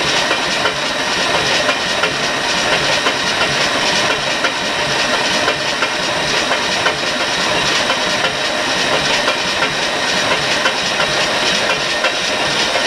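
Machinery priming a truck engine's oil system, running steadily with a fast, even clatter and hiss. Oil pressure has not yet come up: the system is still filling, including the oil filter.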